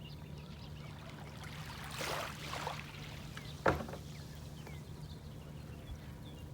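Small waves washing on a beach, with one louder rush of water about two seconds in and a single sharp knock soon after, over a steady low hum.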